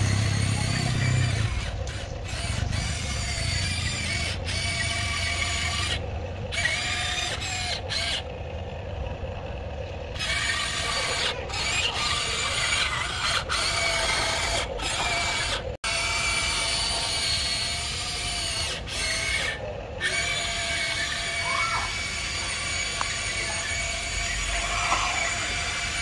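Electric motors and gearboxes of a Huina RC excavator whining steadily as it tracks and swings its arm, cutting out briefly several times.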